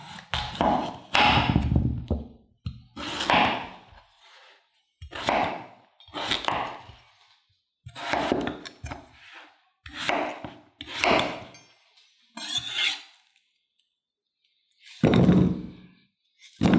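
A santoku knife slicing through a raw peeled potato and thunking onto a wooden cutting board, one cut every second or two. Near the end comes a louder knock as the potato chunks go into a frying pan.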